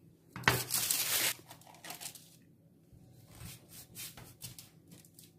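Baking paper rustling and crinkling with a tearing sound for about a second, starting about half a second in. After it come faint light taps and rustles as a small metal piping tip cuts eye holes in soft cookie dough on the paper.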